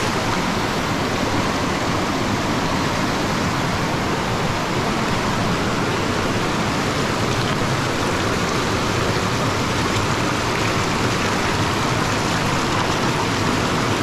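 Mountain stream rushing and splashing over boulders in a steady, unbroken rush of water.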